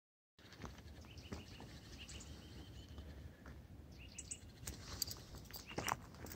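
Quiet outdoor background with a few birds chirping, then footsteps crunching on gravel in the last couple of seconds.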